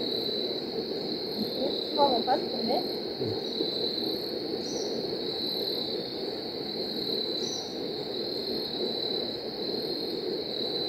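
Evening insect chorus, a steady high-pitched drone, with a brief cluster of short rising chirps about two seconds in.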